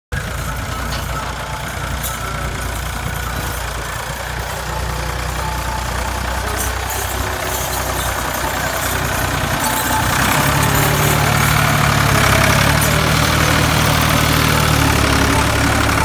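1970 Ford 4000 tractor's three-cylinder engine running steadily under load as it pulls an 18-disc harrow through ploughed soil, growing louder about ten seconds in.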